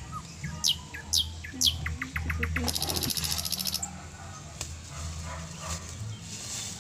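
Backyard birds chirping: three quick downward-sweeping whistles, then a short run of ticks and a buzzy trill about a second long.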